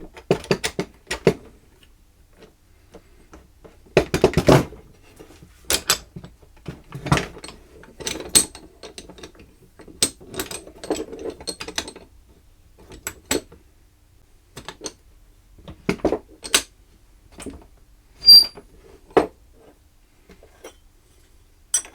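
Irregular clinks and knocks of metal vise parts being handled and fitted during reassembly of a quick-release woodworking vise, one of them ringing briefly.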